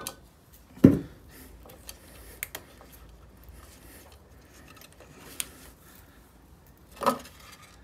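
Hands and pliers working plastic crimp connectors on tail-light wiring: light clicks and rubbing, a sharp knock about a second in and another near the end.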